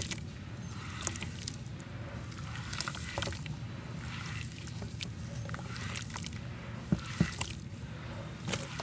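Hands squeezing and kneading thick wet mud in a metal bowl: irregular squelches and wet splats, with two sharper splats about seven seconds in, over a steady low rumble.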